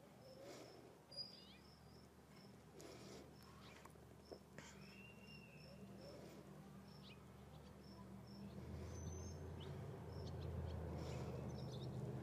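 Faint outdoor ambience: a high insect chirp repeating about twice a second, with a few scattered bird chirps. A low steady hum grows louder after about eight seconds.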